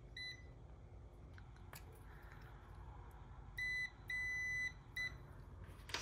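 Fieldpiece SC440 clamp meter's continuity beeper sounding a steady high beep: one short blip near the start, then three more from about three and a half seconds in, the middle one about half a second long. Each beep is the meter signalling a closed circuit between its test leads.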